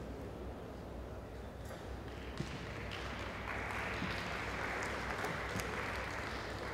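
A single sharp click about two seconds in, then audience applause that starts about a second later and carries on.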